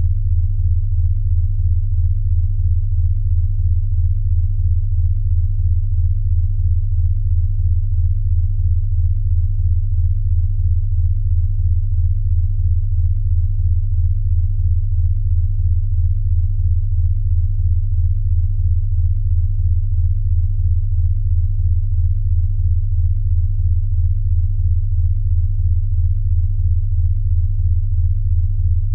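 Steady, low-pitched pure tone used as a sound treatment for snoring. It pulses evenly, about two and a half beats a second, at a constant level.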